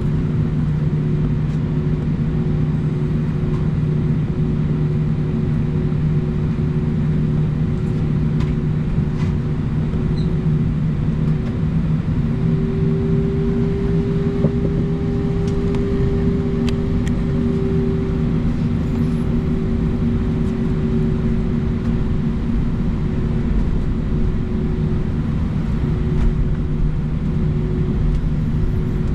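Cabin noise inside an Airbus A319 with its engines running on the ground: a steady low rumble with a continuous hum.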